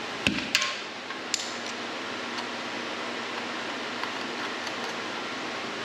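Air chuck and hose being handled at the keg after filling: a thump and a few sharp metallic clicks in the first second and a half, then a steady background hiss.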